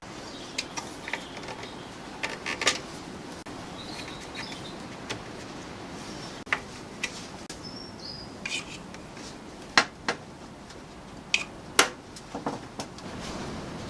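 Scattered light clicks and knocks, a dozen or so at uneven intervals, the sharpest near ten and twelve seconds in, over a low steady hiss.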